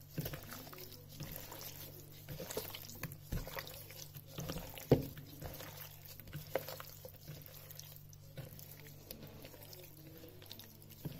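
Gloved hand squishing and turning oiled, seasoned pork pieces in a mixing bowl: irregular soft wet squelches and clicks, with one sharper click about five seconds in. A low steady hum runs underneath.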